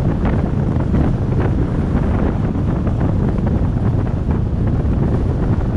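Steady wind rush on the microphone of a camera riding on a moving pickup truck, over the low rumble of the road.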